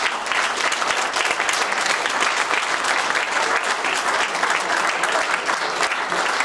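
A roomful of people applauding, dense steady clapping.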